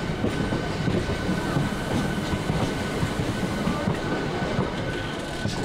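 Electric suburban local train running, heard from its open doorway: wheels clattering irregularly over the rails and points as it changes track onto the single line, with a thin steady high whine.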